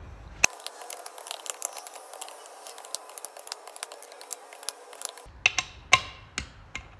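Click-type torque wrench ratcheting on the bolts of a UTV beadlock ring during a re-torque pass in sequence. Rapid light clicking for several seconds, then a few sharper, louder clicks near the end.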